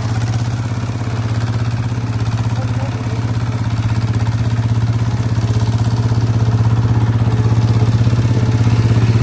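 Bulldozer engine running steadily at a constant speed, a low even drone that grows a little louder about a third of the way in.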